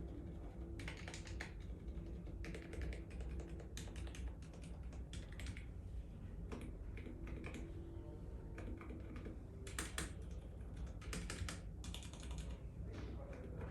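Typing on a Novelkeys NK65 Entry mechanical keyboard with lubed Zealio V2 65-gram tactile switches and G-Concept keycaps: bursts of rapid keystroke clacks with short pauses between them.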